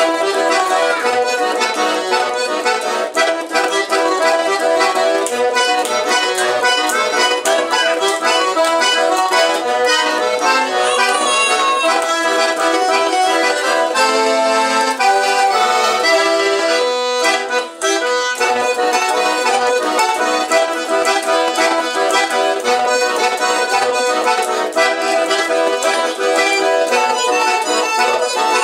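Two button accordions playing chamamé together, full chords at a lively pace, with a sparser passage of short repeated chords about halfway through.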